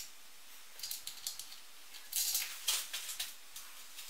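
Socket ratchet wrench turning the nuts that compress the spacers between a blast gate's plates. A few light metal ticks come first, then from about two seconds in several short bursts of rapid ratchet clicking.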